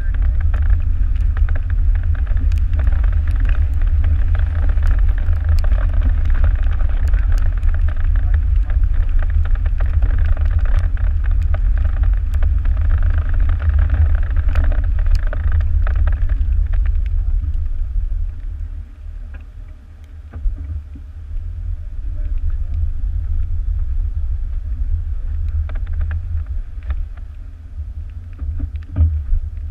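Jeep driving along a gravel mountain road: a steady low rumble of wind and road noise, with scattered small ticks of gravel. The rumble drops noticeably about 18 seconds in, then partly comes back.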